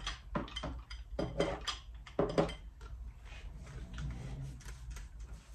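Small hard household objects clinking and knocking as they are picked up and set down while dusting: a quick run of clatters in the first couple of seconds, then quieter handling.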